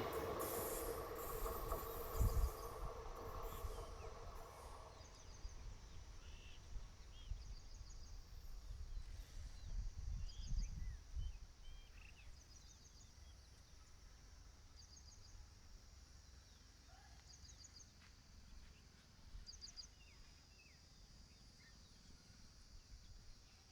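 The passed train's rumble dies away over the first five seconds, leaving quiet outdoor ambience. A short, high chirp repeats every couple of seconds.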